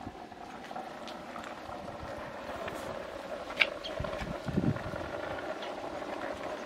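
Open wood fire crackling under a cooking pot while a metal spoon stirs chopped tomatoes, with one sharp clink of the spoon on the pot about three and a half seconds in and a few dull knocks just after. A steady hum runs underneath.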